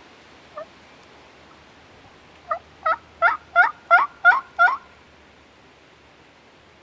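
Turkey yelping: one soft note, then a run of seven evenly spaced yelps, about three a second, each rising in pitch and the series getting louder.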